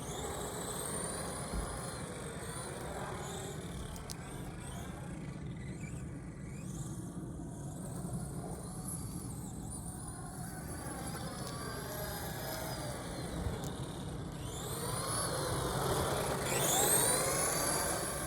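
Electric motor of a fast RC car whining, its pitch rising and falling as it speeds up and slows down, loudest near the end as it passes close.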